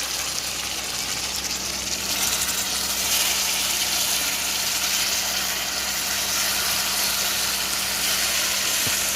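Chicken pieces sizzling in hot oil and burnt-sugar browning in a pot, a steady hiss that gets louder about two to three seconds in, over a low steady hum.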